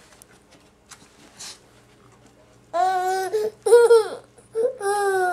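Baby babbling in three drawn-out, high-pitched squealing vocal sounds, starting about halfway through.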